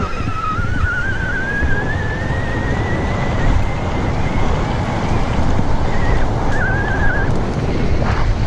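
Mountain bike descending a dirt trail at speed: wind buffeting the microphone over the rumble of the tyres. A thin, wavering high squeal rises slowly over the first three seconds and comes back briefly about seven seconds in.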